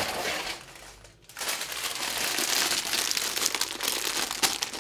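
Sealed plastic LEGO parts bags, filled with bricks, crinkling and rustling as they are handled and lifted out of the box. The rustling dips briefly about a second in, then carries on thick and busy.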